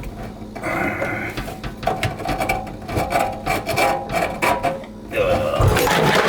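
Old garbage disposal being twisted and worked off its sink mounting ring: irregular metal clanks, knocks and squeaky scraping. The handling grows louder and rougher in the last second or so, as the unit comes free.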